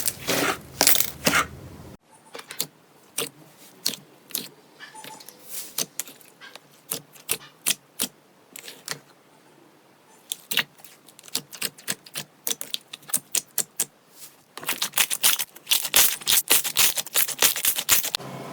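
Slime being squeezed and poked, giving sharp crackles and clicking pops. These are scattered at first and become a dense run of crackling for the last few seconds.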